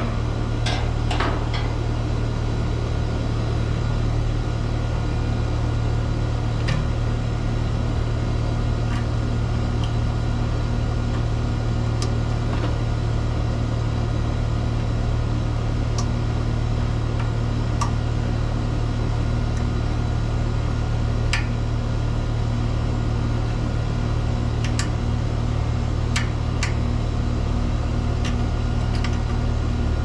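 Outdoor air-conditioning condenser running: a steady compressor and fan hum at one even pitch, with scattered light clicks from handling the wiring in the open electrical panel.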